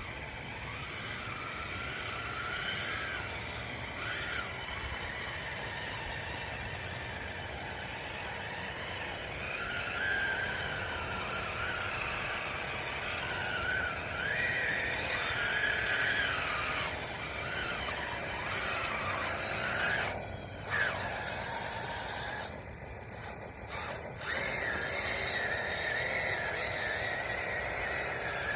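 Radio-controlled model bulldozer working under load: its drive motors and gearing whine, rising and falling in pitch as it pushes and changes speed. The sound cuts out briefly about two-thirds of the way through.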